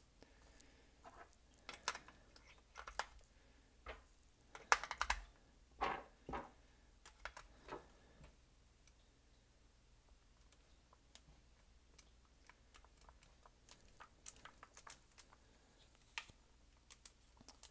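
Scattered sharp plastic clicks as AA batteries are pressed into a TI-83 Plus graphing calculator's battery compartment, the loudest about five seconds in, then fainter clicks of its keys being pressed in the second half.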